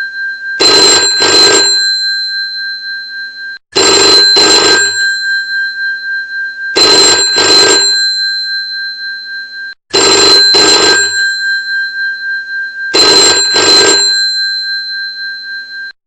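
Old telephone's mechanical bell ringing in double rings, five pairs about every three seconds, each pair leaving a lingering bell tone. It cuts off suddenly near the end.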